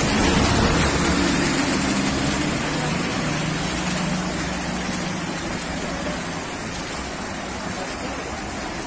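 A motor vehicle's engine running, its low hum fading out about halfway through, over a steady rushing hiss.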